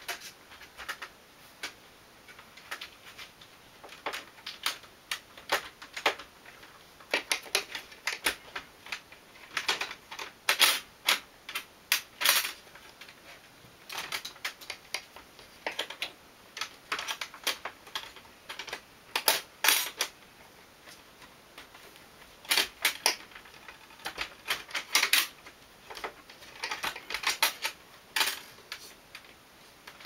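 Irregular sharp clicks, taps and clacks of hard parts being handled and fitted at the top of a window frame while a window air conditioner is installed. They come in uneven clusters, a few louder clacks standing out.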